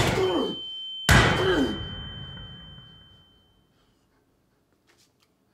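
Two pistol shots about a second apart, the second dying away in echo over a couple of seconds, with a high steady ringing tone that fades out with it.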